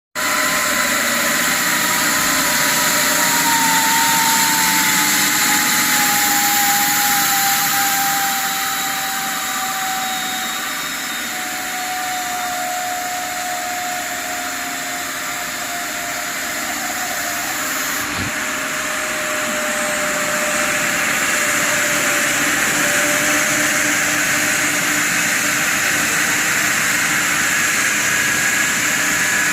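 Chicken plucking machine running: a steady mechanical noise with a hiss, and a faint whine that slowly falls in pitch over the first twenty-odd seconds.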